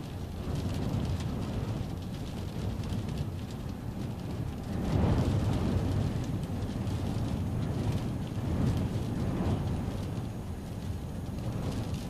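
Storm wind buffeting a stopped car, heard from inside the cabin as a low rumbling rush that swells in gusts, strongest about five seconds in and again a few seconds later. Light ticking of raindrops on the glass and body runs under it.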